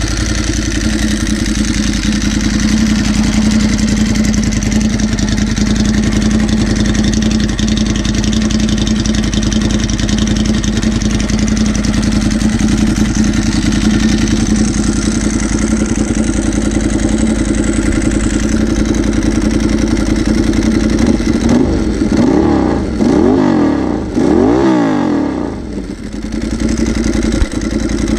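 Ducati 1098's L-twin engine, with a modified exhaust, idling loud and steady; a few seconds before the end it is revved in several quick blips, each rising and falling in pitch.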